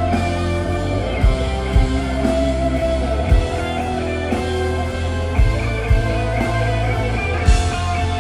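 Rock band playing live in an instrumental passage: guitar lines over a sustained bass, with scattered drum hits.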